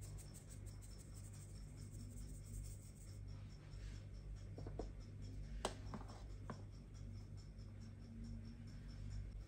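Handheld fine-mesh metal sieve being shaken as flour is sifted into a bowl: faint, fast, even scratchy rustling, with a few small clicks a little past halfway and one sharper tap just after them.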